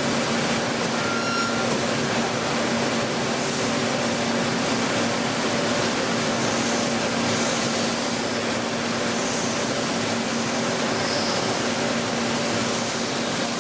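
CNC machine tool running in operation: a steady mechanical hum with a constant hiss, a brief higher whine about a second in.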